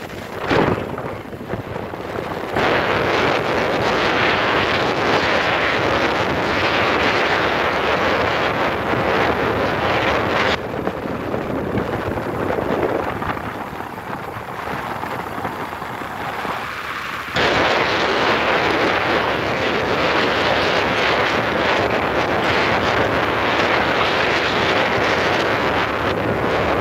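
Wind buffeting the microphone while travelling along a road. The rush starts up a couple of seconds in, eases abruptly about ten seconds in, and comes back just as abruptly about seventeen seconds in.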